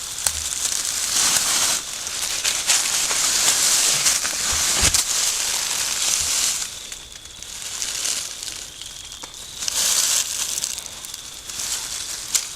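Loud rustling and crinkling close to the microphone, in long stretches with a few sharp crackles among them.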